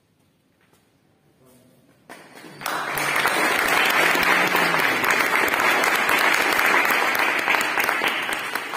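A roomful of people applauding: quiet for the first two seconds, then clapping breaks out, builds within a second to steady loud applause, and begins to die away near the end.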